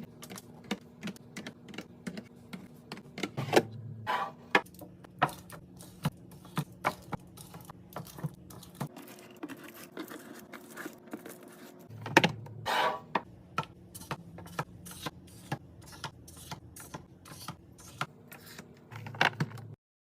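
Quick, irregular clicks and taps of drinks, snacks and plastic containers being handled and set into place while restocking a fridge. Three louder rattling clatters come about 3 s in, near the middle and near the end, and the sound cuts off suddenly just before the end.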